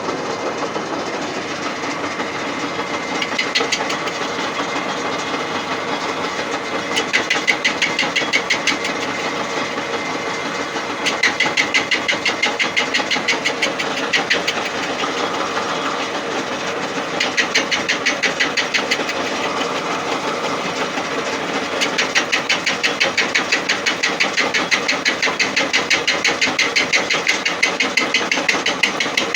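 1A625 lathe facing a cast iron bar with a single-point cutting tool at 355 rpm under power feed: a steady machine drone with a constant high whine. Stretches of rapid, evenly spaced knocking come and go several times as the tool cuts.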